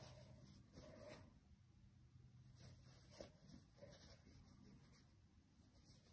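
Near silence, with a few faint rustles of cotton fabric being handled and folded.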